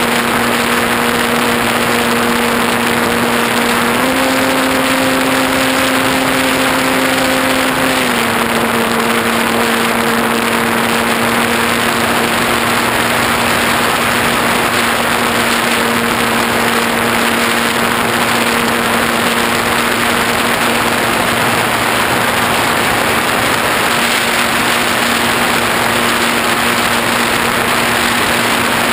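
Electric motor and propeller of a Parkzone T-28 Trojan RC model plane humming steadily in flight, under a loud rush of wind across the camera. The pitch steps up about four seconds in as the motor speeds up, and drops back about four seconds later.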